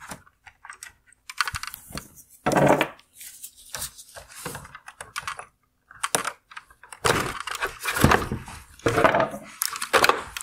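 Hard plastic clicking, knocking and scraping from a car LED headlight assembly being handled as its wire harness connector is unplugged from the front bezel. There is a sharp burst about two and a half seconds in and a denser run of knocks in the second half.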